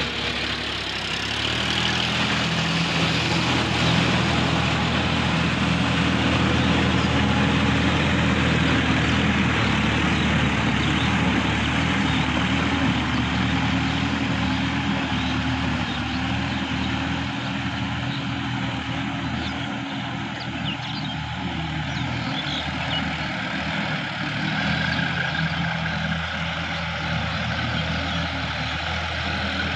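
Sonalika DI-50 RX tractor's diesel engine running steadily under load while it works through a flooded rice paddy. Its pitch wavers a little, with a brief dip about a second in.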